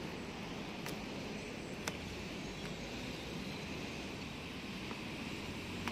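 Steady outdoor background noise, an even low rumble and hiss with no distinct source, and two faint clicks about a second apart near the start. It cuts off abruptly at the end.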